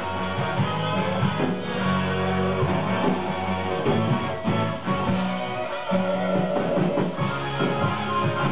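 Rock music led by guitar, with a moving bass line under it.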